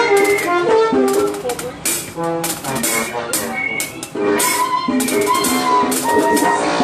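A live band playing an upbeat calypso-style song at a soundcheck, with held melody notes over steady percussion; the music thins briefly about four seconds in and then comes back full.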